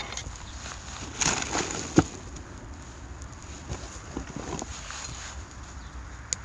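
Shichirin clay grill being tended and fed pine cones: a few clattering knocks, the loudest about two seconds in, then lighter scattered ticks, over a low steady rumble of wind on the microphone.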